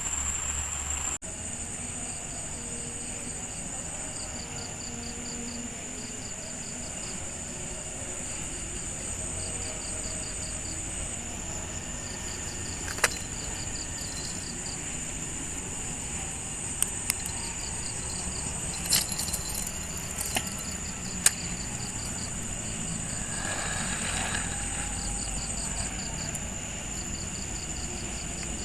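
Insect chorus: a steady high-pitched whine with repeated trains of rapid cricket chirps over a continuous hiss, broken by a few sharp clicks in the middle.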